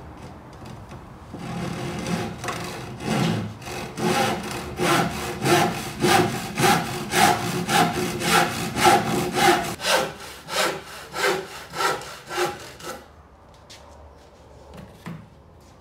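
Handsaw crosscutting a spruce board in steady back-and-forth strokes, about two a second. The strokes start softly and stop about thirteen seconds in as the piece is cut through.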